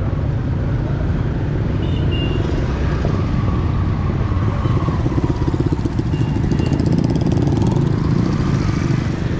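Motorbike engine running close by over a steady street-traffic rumble, loudest from about five to eight seconds in.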